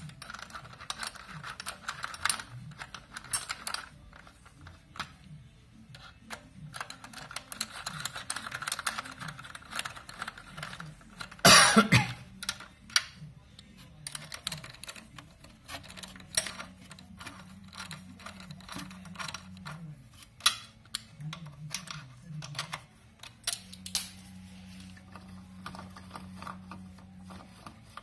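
Socket ratchet clicking and steel tools clinking against metal, in irregular runs of short clicks, with one loud metal clank about twelve seconds in.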